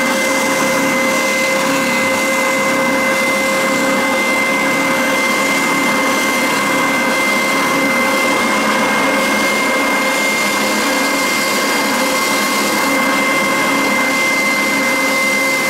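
Triton TSPST450 oscillating spindle sander running steadily with a 1-inch sanding drum: an even motor drone with a steady high whine, as a strip of wood is sanded against the drum.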